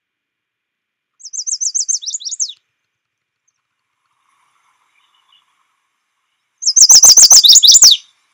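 Recorded chestnut-sided warbler song, played twice: each song is a quick run of about seven high, repeated notes ending in a few falling notes. The second song is much louder and distorted.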